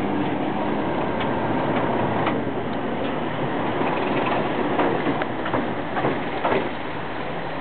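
English Electric DE-class diesel-electric locomotive running on the track, a steady engine noise with a few sharp metallic clanks in the second half.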